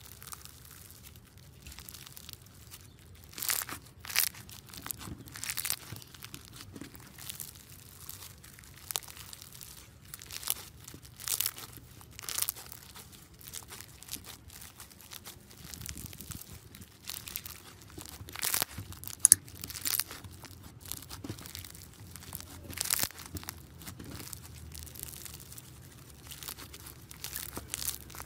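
Floam, slime packed with tiny foam beads, squeezed and kneaded by hand, giving irregular crunchy crackles and pops. A few sharper cracks stand out, the loudest about two-thirds of the way through.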